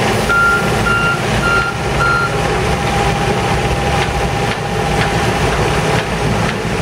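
Diesel engine of a wheeled rail-handling excavator running steadily, while a backup alarm gives four short beeps about half a second apart near the start.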